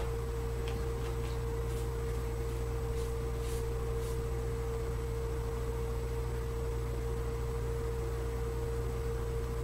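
Corded electric hair clipper running with a steady, even buzzing hum, with a few faint clicks in the first few seconds.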